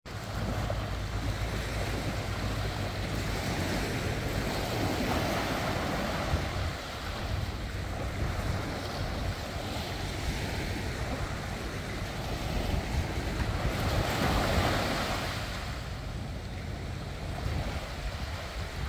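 Small waves breaking and washing up onto a sandy beach, swelling louder about five seconds in and again near the end, with wind rumbling on the microphone.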